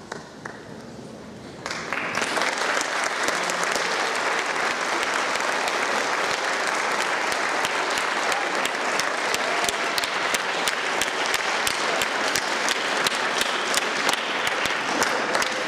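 Audience applause, the clapping of many hands, breaking out suddenly about two seconds in and continuing steadily.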